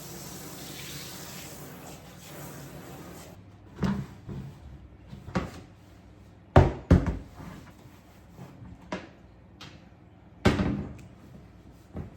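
A steady hiss for about the first three seconds, then a string of separate knocks and clunks of things being handled in a kitchen. The loudest are a pair about two-thirds of the way in and one more near the end.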